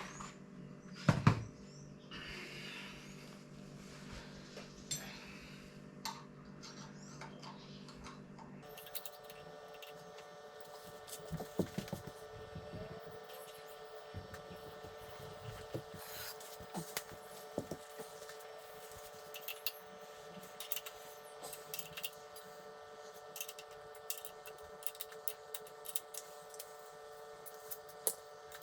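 Scattered light clicks and knocks of hand tools and metal parts being handled during work on a motorcycle's front wheel, over a steady electrical hum. The hum changes abruptly about nine seconds in.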